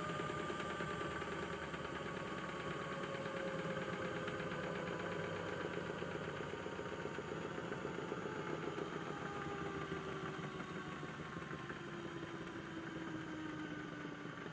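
Small motor of a toy washing machine running its drum: a steady mechanical hum and rattle whose pitch slowly falls.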